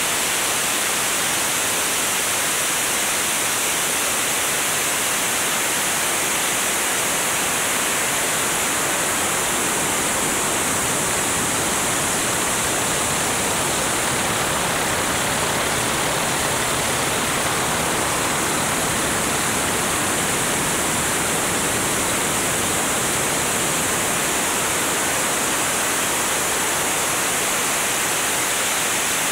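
Steady rushing airflow hiss on a wing-mounted camera's microphone at flight speed, even throughout with no distinct engine note standing out.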